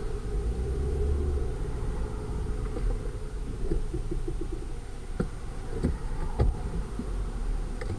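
Low engine and road rumble heard from inside a car as it slows onto the road shoulder and stops, with a few small clicks and knocks from the cabin.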